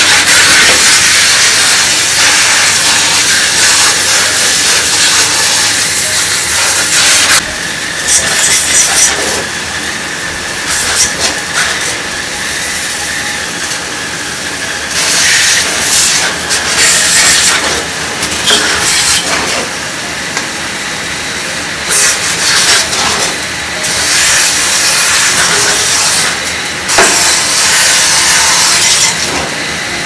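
High-pressure water spray from a nozzle on a hose, hissing as it jets onto the removed pulsator and lint filter of a top-loading washing machine. The hiss is steady at first, then comes and goes in shorter blasts from about seven seconds in.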